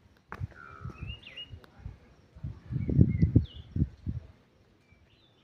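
Wild birds calling outdoors, several short chirps and gliding calls. A cluster of low thumps and rumbles comes about halfway through and is the loudest sound.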